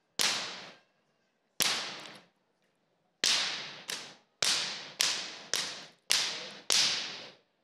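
Training whip slapping sharply, about nine cracks at uneven intervals, closer together in the second half. Each crack rings out briefly in the large arena.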